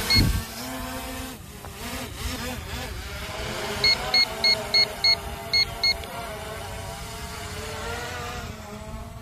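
Quadcopter drone's propellers buzzing as it lifts off and climbs, the motor pitch drifting up and down. About four seconds in, a run of seven short electronic beeps.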